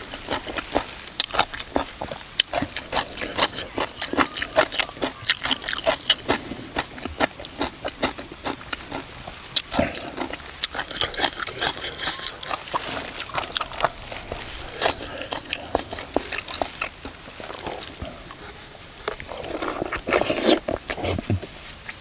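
Chewing and crunching while eating Thai pounded cucumber salad: quick, irregular, crisp crunches, several a second.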